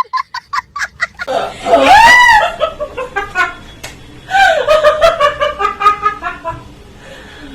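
Person laughing: quick bursts of snickering, then a loud drawn-out cry about two seconds in whose pitch rises and falls, then more giggling that trails off near the end.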